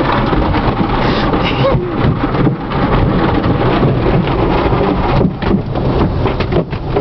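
Automatic car wash spraying water over the car, heard from inside the cabin: a loud, steady rush of water on the windows.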